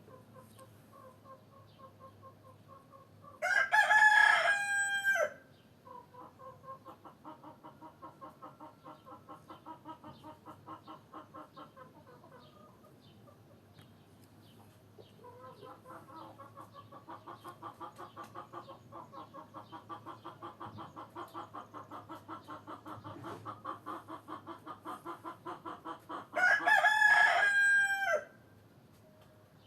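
A rooster crowing twice, each crow a loud call of about two seconds, over hens clucking in quick repeated runs between the crows.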